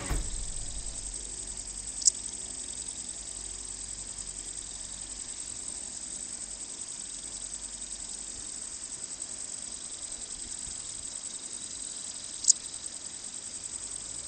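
Insects chirring: a steady, fast-pulsing high-pitched trill, with two brief sharp high ticks, one about two seconds in and one near the end.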